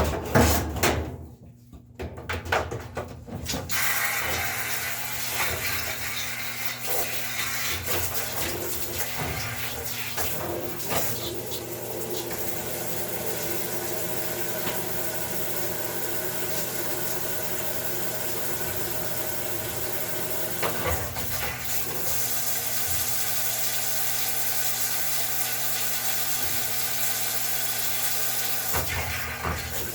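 Water running steadily, as when a top-load washer fills, with a low steady hum underneath. A few knocks and clatter come in the first three seconds before the rush begins.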